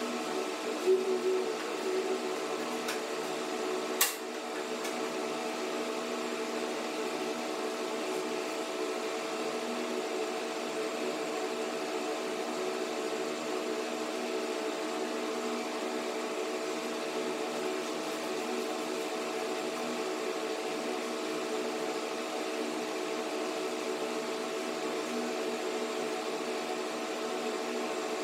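A steady mechanical hum, made of several fixed tones, like a fan or other running appliance. A few soft knocks come about a second in, and a single sharp click comes about four seconds in.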